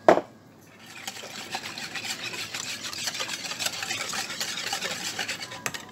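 A sharp knock, then a wire whisk beating thin pancake batter of egg, sugar and milk in a plastic bowl: a fast, steady clatter of strokes that stops just before the end.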